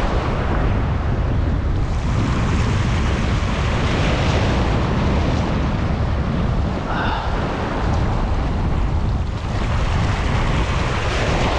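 Sea waves surging and washing over a shallow rocky reef, swelling and easing every few seconds, with heavy wind rumble on the microphone.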